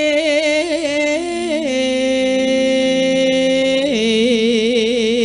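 A sinden, a female Javanese singer, singing a long melismatic phrase into a microphone. Her voice bends and wavers, holds one steady note from about two to four seconds in, then goes on with a fast vibrato.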